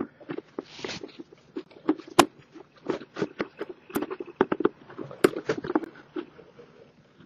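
Honda Innova's plastic air-filter housing and rubber intake duct being worked loose by hand: a run of irregular plastic clicks, taps and scrapes.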